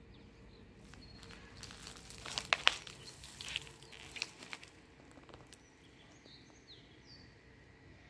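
Crackling and crunching of dry grass and twigs underfoot for a few seconds, then a few short bird chirps near the end.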